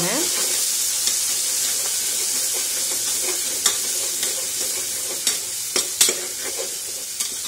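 Sliced onions and ginger-garlic paste sizzling in hot oil in an aluminium pressure cooker while being stirred, sautéed until the paste's raw smell cooks off. A metal slotted ladle scrapes and clicks sharply against the pot a few times in the second half.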